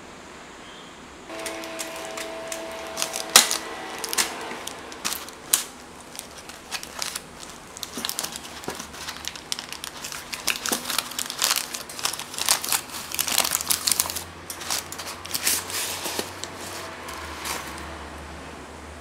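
Parchment paper lining a baked cheesecake crinkling and crackling as it is handled, starting about a second in and dying away near the end; the sharpest crackle comes about three seconds in.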